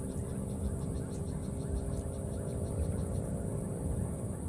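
Outdoor wildlife ambience: a steady high-pitched drone with fast, even chirping at about five pulses a second, over a low rumble.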